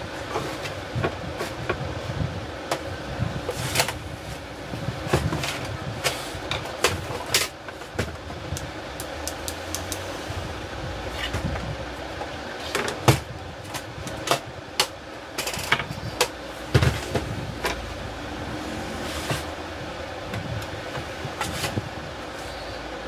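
Irregular plastic clicks, knocks and scrapes of an HP LaserJet 1020 Plus printer being handled on a bench over a steady low hum. The paper tray is folded shut, the printer is turned round, and near the end a screwdriver goes to the screws of its back cover.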